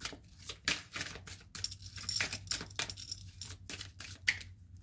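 A deck of tarot cards being shuffled by hand: a quick, uneven run of card flicks and taps, several a second.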